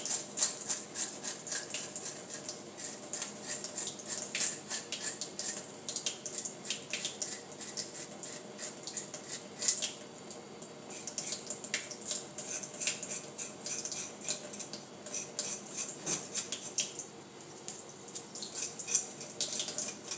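A fork scraping scales off a fish under a running kitchen tap: many quick, irregular scratchy strokes over the steady splash of water into a stainless-steel sink.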